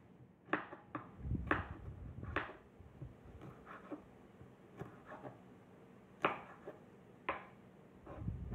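Chef's knife chopping on a wooden cutting board, slicing carrot and then a green vegetable: irregular sharp knocks roughly once a second, with a low dull rumble of handling around the second chop and again near the end.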